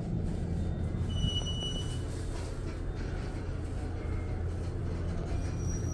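Steady low machinery hum, with a short high-pitched electronic beep about a second in.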